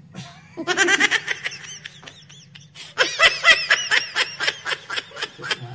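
People laughing in two long bouts of quick, repeated bursts, the first starting about half a second in and the second about three seconds in.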